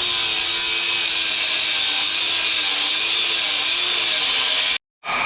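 Power saw cutting steel square tubing: a loud, steady grinding hiss over a motor tone that wavers slightly under load. It cuts out for a moment near the end and then starts again.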